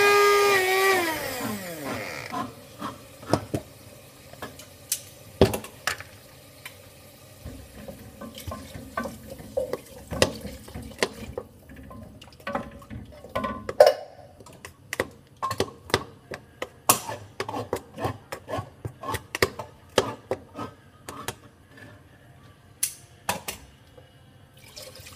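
Small personal blender motor running and winding down in the first two seconds, its pitch falling as it stops. Then a long run of plastic clicks and knocks as the blender cup is handled and a utensil is worked in the milkshake.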